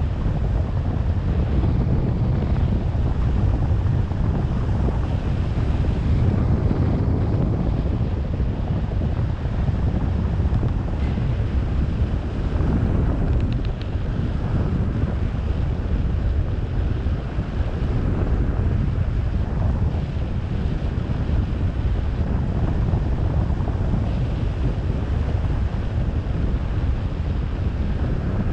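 Wind buffeting the microphone: a steady, low rumbling rush with no other clear sound standing out.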